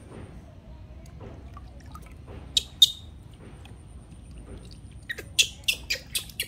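Water splashing and dripping in a plastic basin as a newborn baby monkey is washed by hand. Two sharp splashes come about two and a half seconds in, then a quick run of splashes near the end.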